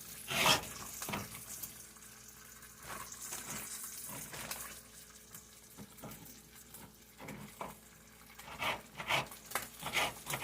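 Knife cutting vegetables on a cutting board: a couple of cuts near the start, then a run of about two cuts a second near the end. Between them is a steady hiss of bacon frying in the pan.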